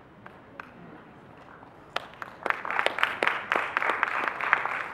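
Audience applauding: a few single claps about two seconds in, then quickly filling out into steady applause from many hands.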